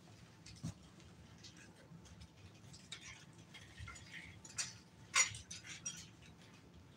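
Scattered light clicks and rustles of puppies moving about on puppy pads in a wire pen, with a sharper crackle about five seconds in.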